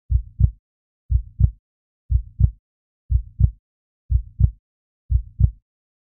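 Heartbeat sound effect: a low double thump, lub-dub, repeating about once a second, six times, with silence between the beats.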